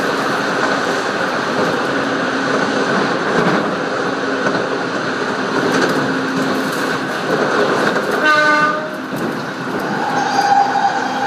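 Running noise of a train heard from inside the carriage: a steady rumble and hum. About eight seconds in, a short pitched tone sounds briefly, and near the end a steady whine comes in.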